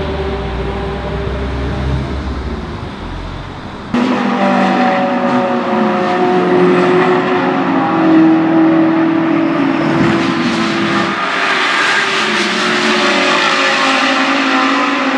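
Race car engines at full throttle. First, GT3 cars approach down a straight. After an abrupt cut about four seconds in, a Ferrari 488 GT3's twin-turbo V8 accelerates away up a hill, and near the end a second race car's engine is heard revving up behind it.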